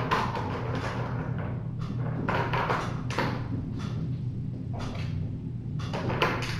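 Kittens playing on a plastic cat toy, with several short bursts of rattling and knocking, over a steady low hum.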